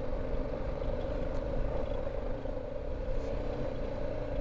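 BMW G310 GS single-cylinder motorcycle engine running steadily under way on a rocky track.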